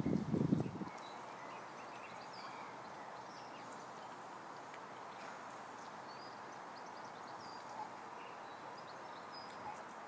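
Wind buffeting the microphone for about the first second, then faint steady outdoor background with scattered short, high peeps from mallard ducklings.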